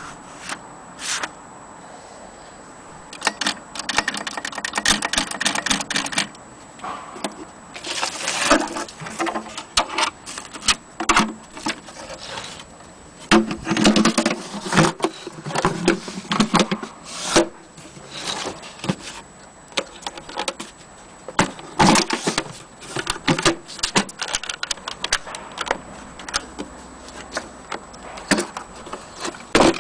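1927 Mignon index typewriter being typed on: irregular runs of quick mechanical clicks and clacks with short pauses between them.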